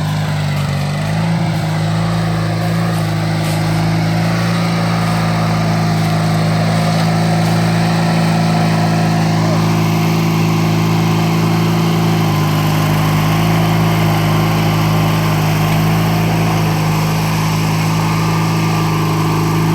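Riding lawnmower engine running steadily under load while the mower is stuck and working to pull free, its pitch shifting slightly about a second in and again near the middle.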